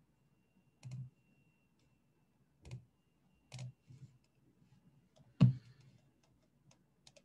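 Scattered faint clicks from someone working a computer's mouse and keys, six or so spread out, the loudest about five and a half seconds in.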